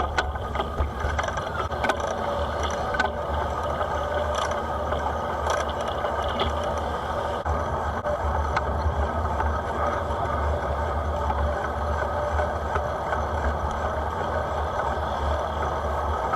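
Wind rumbling on the microphone and road traffic noise while riding a bicycle along a road, with a few small clicks and knocks in the first three seconds.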